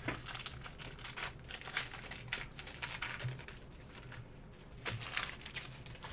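Crinkling and tearing of a trading-card pack's wrapper as it is ripped open and handled, in a run of short crackles.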